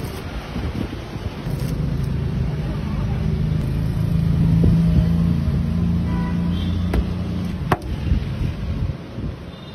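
A road vehicle's engine passing close by, building to its loudest about halfway through and then fading, with a couple of sharp clicks near the end.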